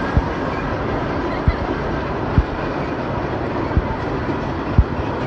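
Train hauled by the steam locomotive Norfolk & Western 611 rolling across a trestle: a steady rumble of wheels on rail, with short low thuds every second or so.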